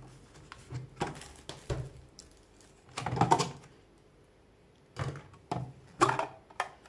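Clicks, knocks and clatter of a Tefal hand blender's slicer attachment being taken apart: the motor unit is unlatched and lifted off, then the clear plastic lid with its feed tube is pulled off the bowl. The knocks come irregularly, loudest in a cluster about three seconds in, with more near the end; no motor is running.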